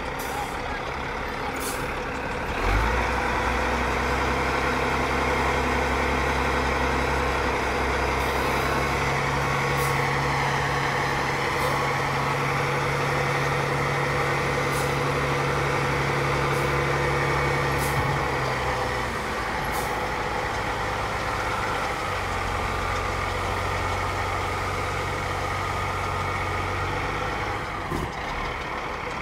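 Heavy diesel truck engines running, one growing louder about three seconds in and easing to a lower note around nineteen seconds, with several short hisses of air from air brakes.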